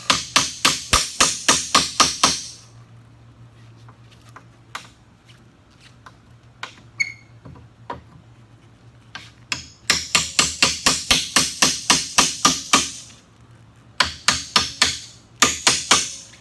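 Hammer driving a small crowbar's tip under a pallet board to pry it loose. There are three runs of quick, even strikes, about four or five a second, with a few scattered taps between them.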